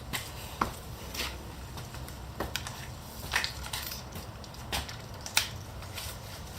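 Irregular short clicks and knocks, about eight spread unevenly over several seconds, with a low steady hum underneath: tools being handled at a car wheel.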